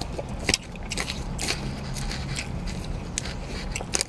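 Chewing and crunching of salad, with several sharp clicks and scrapes of a fork against a plastic food container, over a steady low hum.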